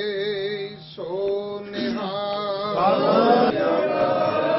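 Sikh congregation chanting: voices hold long, wavering notes, with more voices joining in about three seconds in.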